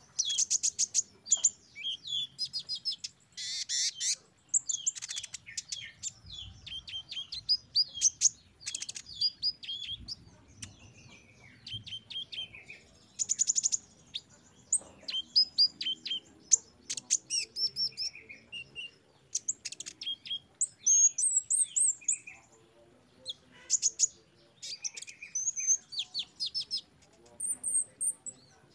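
A caged male sunbird (a konin) singing a rapid, varied twittering song of high chirps, fast trills and short whistled slurs, with only brief pauses.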